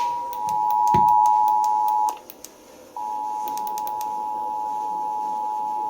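Emergency Alert System attention signal, the steady two-tone alarm (853 and 960 Hz) that opens an EAS required monthly test, received over radio. It breaks off about two seconds in and comes back about a second later, somewhat quieter.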